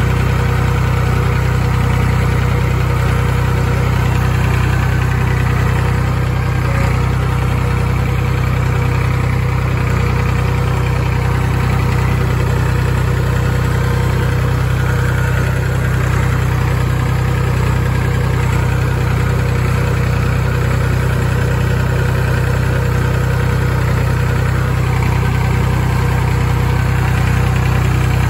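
Massey Ferguson 251XE tractor's three-cylinder Perkins diesel engine running steadily at an even speed while the tractor drives across the field, heard from the driver's seat just behind the exhaust stack.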